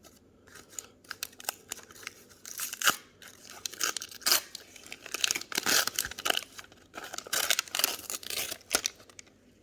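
Wax paper wrapper of a vintage Donruss baseball card pack being torn open and crinkled as the cards are pulled out, a run of sharp crackles and rustles.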